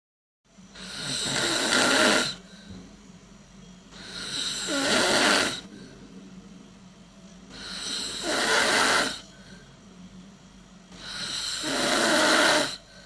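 A person snoring: four long snores, one every three and a half to four seconds, each building in loudness over a second or two and then cutting off sharply, with a faint steady hum between them.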